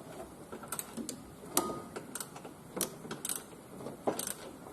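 Irregular metallic clicks and knocks, some ringing, from a wrench turning the engine's crankshaft by hand to roll the power steering pump belt onto its pulley.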